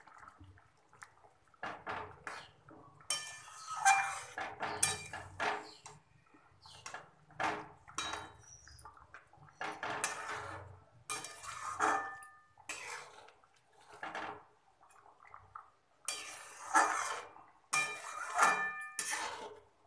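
Metal spatula scraping and clinking against a metal kadai as a thick fish curry is stirred, in repeated strokes at irregular intervals, some with a brief metallic ring.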